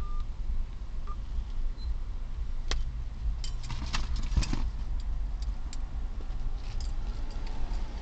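Handling noises inside a parked car: a sharp click a little under three seconds in, then a short run of clicks and clattering around the middle, over a steady low rumble.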